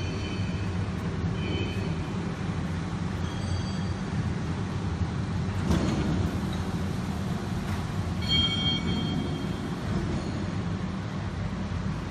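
Electro-hydraulic CNC press brake running: a steady low hum with a few brief high metallic squeals and a single knock about six seconds in.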